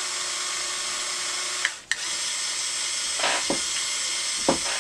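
Small electric motor of a CaDa remote-controlled brick-built tank whirring steadily through its plastic gears. It stops briefly a little under two seconds in, then starts again, with a few light clicks in the second half. It is the gun-raising drive, which hums but does not lift the barrel.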